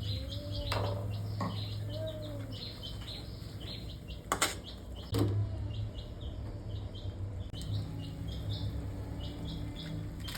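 Small birds chirping in short repeated notes over a steady low hum, with two sharp knocks about four and five seconds in.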